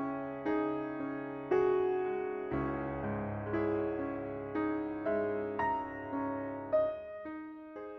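Slow, gentle background piano music, with single notes and chords struck roughly once a second, each one fading away.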